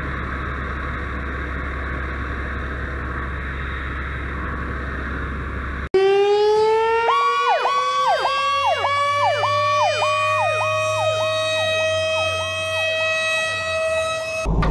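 Steady drone of fire apparatus engines running. About six seconds in it cuts abruptly to responding fire-engine sirens: one siren climbs slowly in pitch while a second whoops rapidly up and down over it, and both stop suddenly near the end.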